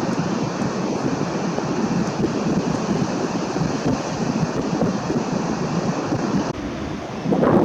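Storm wind buffeting the microphone over breaking surf, a dense steady rush. The noise drops suddenly about six and a half seconds in, then swells again near the end.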